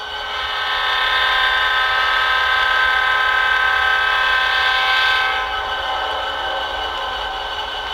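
Diesel locomotive air horn holding one long chord of several tones, growing louder about a second in and dropping back a little past the halfway point.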